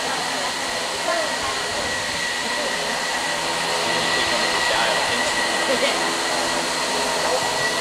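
A steady, fan-like whirring noise with a faint constant tone, and faint voices in the background.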